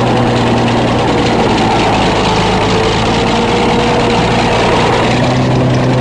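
Bulldozer's diesel engine running steadily at low revs, a deep even hum, while its operator works the control levers.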